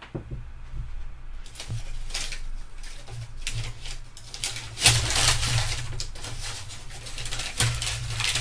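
Crumpled packing paper crinkling and rustling in irregular bursts as it is picked open with long metal forceps inside a plastic tub, louder from about halfway through, over a steady low hum.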